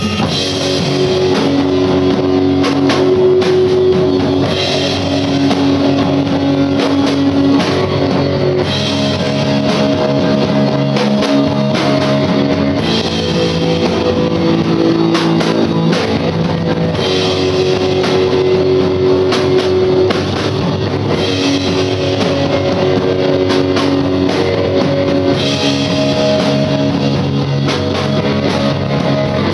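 Rock band playing a heavy song live: electric guitar chords held over a drum kit, the chords changing every few seconds in a repeating pattern.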